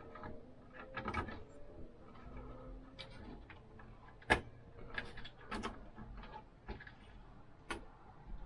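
Scattered sharp clicks and small rattles of hard plastic and metal parts being handled, the loudest click about four seconds in. A stock Intel low-profile CPU cooler is being fitted onto the motherboard, its push pins snapping in.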